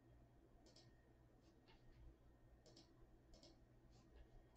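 Faint clicks of a computer mouse and keyboard: several short single and paired clicks about a second apart over a low steady hum, as a list is copied and pasted into a spreadsheet.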